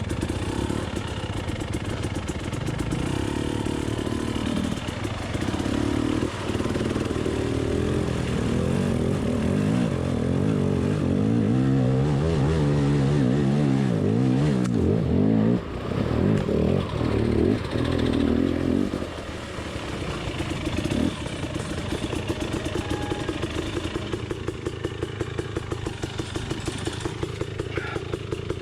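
Beta dirt bike engine revved up and down over and over, making a warbling noise likened to a drowning dolphin. About two-thirds of the way in it drops back to a steady idle.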